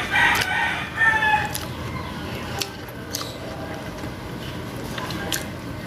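Close-up eating sounds: chewing and lip-smacking with scattered soft clicks as fish and rice are eaten by hand. Two short pitched calls in the background in the first second and a half.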